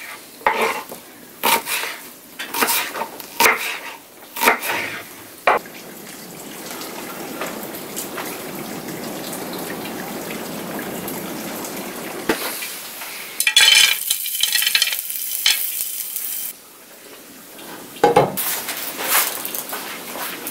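A knife cutting an onion on a wooden board, with about ten sharp chops over the first five seconds. Then food sizzles steadily in a frying pan, getting louder and brighter for a few seconds midway, with a few pan and utensil knocks near the end.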